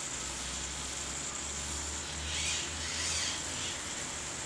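Faint whir of the 2-axis stabilized camera mount's servos correcting as the quadcopter is tilted by hand, heard as two short buzzy hisses around the middle, over a low rumble of handling that stops near the end.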